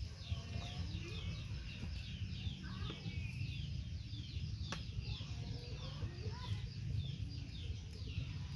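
Birds chirping rapidly and without pause, with a few lower clucking calls and a steady low rumble underneath; one sharp click just past halfway.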